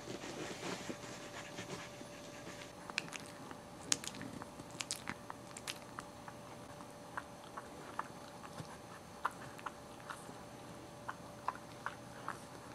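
A Boxer puppy and a Maltese mouthing and nuzzling each other: scattered short clicks and smacks, with a rustle in the first couple of seconds.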